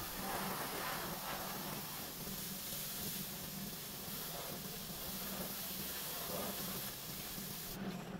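A steady hiss with a low hum underneath; the hiss cuts off suddenly near the end.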